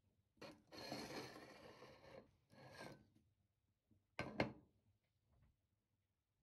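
A ceramic plate sliding and scraping on a stainless steel counter, in a longer stroke and then a shorter one. A sharp clack a little after four seconds is the loudest sound.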